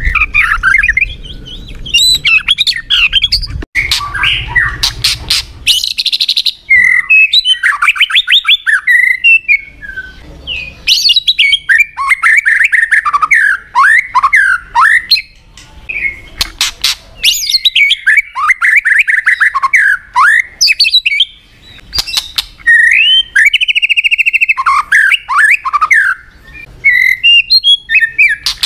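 White-rumped shama singing a loud, rapid, varied song of whistled phrases and sharp clicking notes, in bursts separated by brief pauses. A low background rumble under the song drops away about six seconds in.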